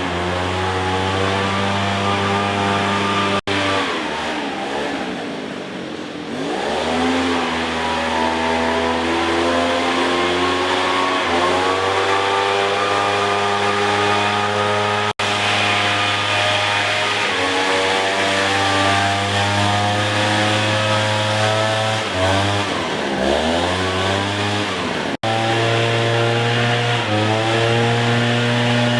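An engine running, its pitch holding steady for stretches and twice sinking and climbing back up, with a few abrupt breaks.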